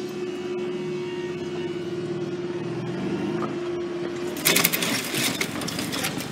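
Level crossing barrier mechanism raising its booms: a steady motor hum that stops about four seconds in as the barriers reach the upright, followed by a loud burst of rattling and clattering.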